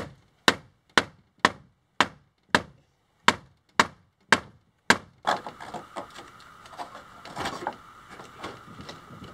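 A wooden stick knocking sharply against the edge of a fiberglass kayak mold to free the cured part: ten knocks about two a second, with a short break in the middle. After that come quieter, irregular knocks and scraping as the part's edge is worked loose.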